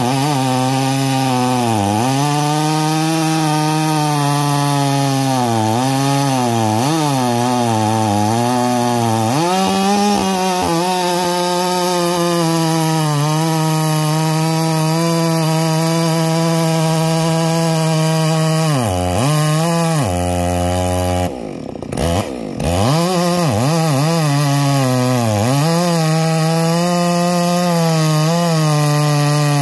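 Holzfforma G466 chainsaw, a two-stroke clone of the Stihl 046/MS 460 with a 28-inch bar and full-chisel chain, running at full throttle as it cuts through an ash log; the engine pitch dips again and again as the chain bites into the wood and picks back up. About twenty seconds in it drops briefly to a low idle, then revs up again and carries on cutting.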